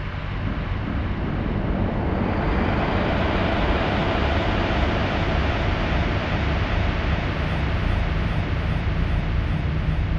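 Dark ambient drone music: a dense, low, noisy wash like distant engine rumble and wind, swelling over the first couple of seconds and then holding steady.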